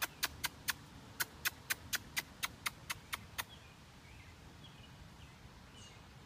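A quick series of about fourteen sharp clicks, about four a second, with a short pause about a second in, stopping about three and a half seconds in.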